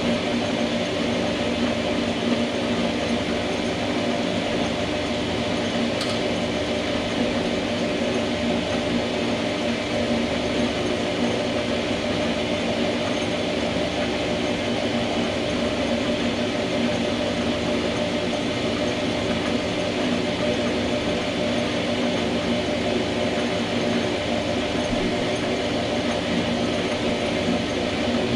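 Small metal lathe running steadily, its spindle and gear train giving an even mechanical drone, spun up to centre-drill the workpiece.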